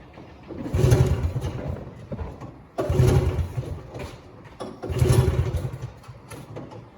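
Vintage snowmobile's two-stroke engine being pull-started on its recoil starter: three pulls about two seconds apart, each turning the engine over without it catching. The owner wonders whether it is flooded.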